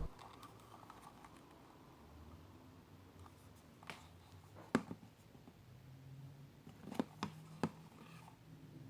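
Quiet room tone with a handful of faint taps and clicks from handling a small vinyl figure, the loudest about five seconds in.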